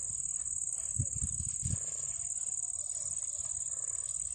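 Insects droning steadily in a grass field, one continuous high-pitched hum, with a few soft low thumps between about one and two seconds in.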